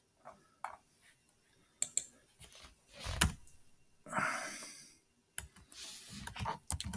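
Scattered clicks of a computer mouse and keyboard with small knocks at a desk, and a short breathy exhale about four seconds in.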